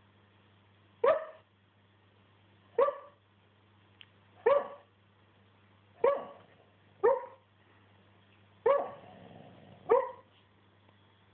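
A bullmastiff barking in her sleep while dreaming: seven short barks, one every second or two.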